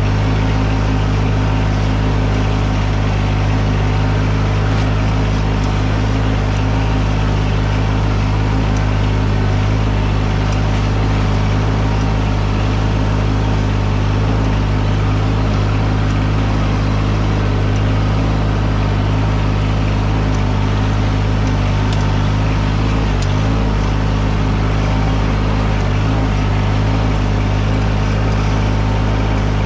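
An engine running steadily at a constant speed, a loud, even low hum with no revving.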